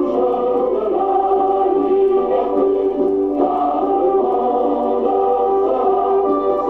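Music: a choir singing long held notes that change in steps.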